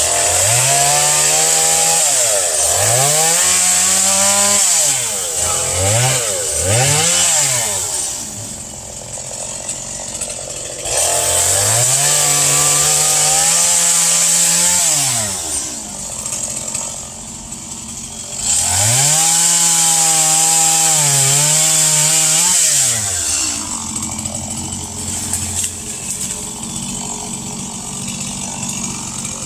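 Gas chainsaw revved to full speed and cutting wood in three long cuts of about four seconds each, with two short throttle blips after the first. It drops back to idle between cuts.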